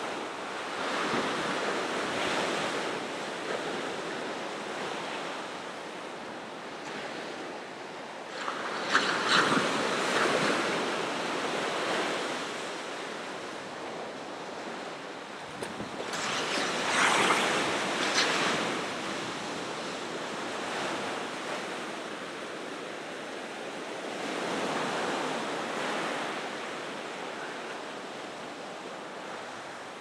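Ocean surf: waves breaking and washing in, the rush swelling and fading again every eight seconds or so, loudest twice in the middle.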